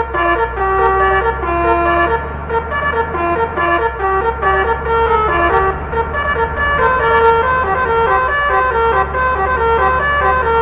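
Basuri telolet multi-tone bus horn playing a melody: a continuous run of stepped notes changing pitch every fraction of a second, over a low steady rumble.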